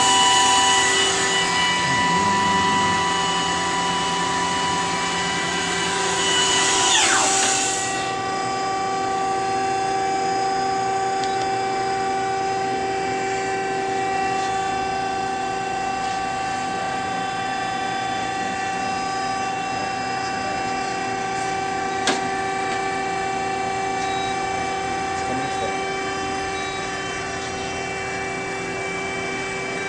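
Okuma MF-46VB vertical machining center's spindle running at a test speed, a steady whine of several high tones. A hiss under it stops after a short falling glide about seven to eight seconds in, and there is a single sharp click a little past the middle.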